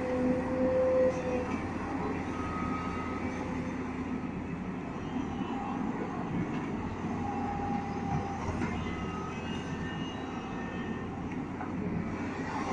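Tata Hitachi EX210 hydraulic excavator working in power mode, its diesel engine running steadily under load as it digs, swings and dumps soil. A high whine stops about a second and a half in, and a few shorter whines follow later.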